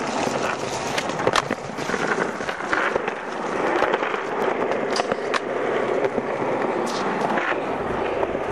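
Skateboard wheels rolling over rough concrete with a steady grinding rumble, broken several times by sharp clacks of the board's tail popping and the board landing.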